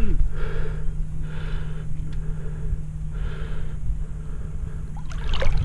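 A person breathing heavily, soft puffs about once a second, over a steady low hum.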